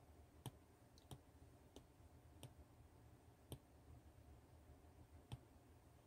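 Apple Pencil tip tapping on the iPad's glass screen, about six faint, sharp taps at uneven intervals, over a low steady hum.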